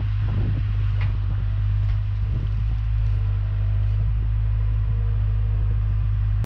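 Deere 270 skid steer's diesel engine running steadily at working speed as the machine drives forward, a loud low drone with a few faint knocks.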